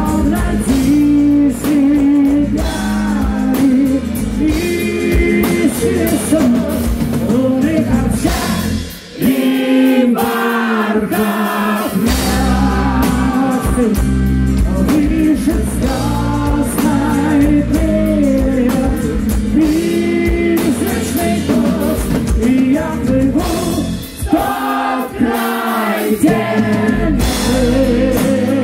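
Heavy metal band playing live: a male lead singer sings over electric guitar, bass and drum kit. The low end drops out briefly twice, around nine seconds in and again around twenty-five seconds in.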